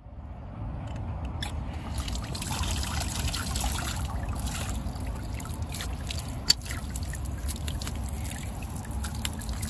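Water from an outdoor tap splashing and trickling onto a dog's legs and the concrete around a drain grate, a steady spatter with many small ticks of droplets. A single sharp click stands out about six and a half seconds in.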